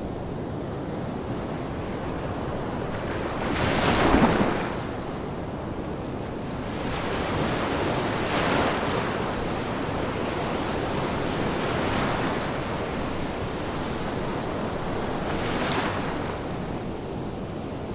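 Ocean surf: waves breaking and washing in over a steady hiss of surf. The loudest wave comes about four seconds in, and three more follow at intervals of roughly four seconds.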